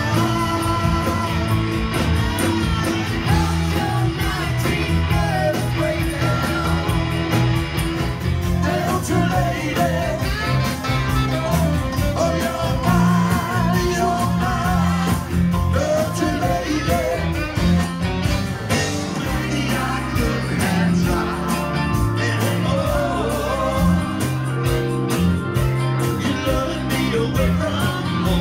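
Rock band playing live: electric guitars and bass under a sung vocal line, steady and loud throughout.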